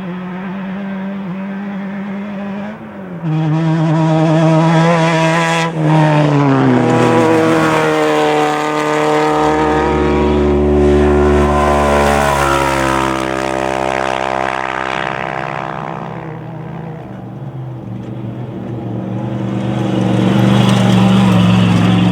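Off-road race vehicles' engines running hard as they pass by. One gets suddenly louder about three seconds in, its pitch sweeping down as it goes past with a deep rumble, then fades before another engine builds up near the end.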